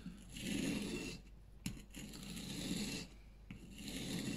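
Steel knife blade pushed along the coarse side of a wet water stone (whetstone): three scraping strokes of about a second each, held at the angle of the grind.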